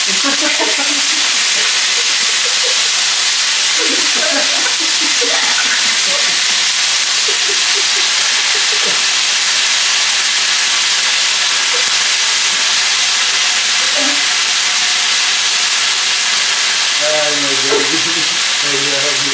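Marinated chicken thighs frying in a very hot oiled pan: a loud, steady sizzle.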